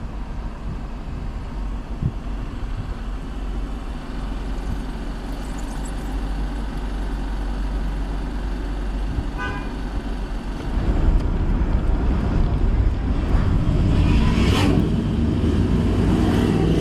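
Steady engine and road rumble of a car driving, with a brief car-horn toot about nine seconds in. The rumble grows louder from about eleven seconds in.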